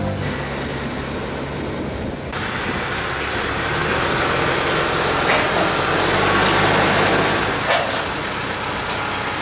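TYM compact tractor's diesel engine running with a steady low hum, getting louder toward the middle and easing off near the end, with a couple of brief knocks.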